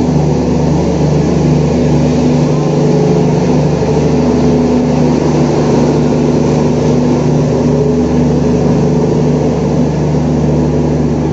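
Diesel generator sets of an LHB luggage-brake-and-generator car running at a steady speed: a loud, even engine drone with a constant hum that does not rise or fall.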